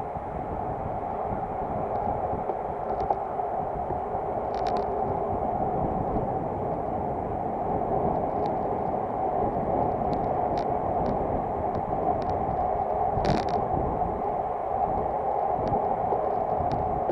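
Steady rush of wind and tyre noise from a road bike rolling at speed within a group of riders, with wind on the microphone. Scattered light clicks throughout and one sharper clatter about thirteen seconds in.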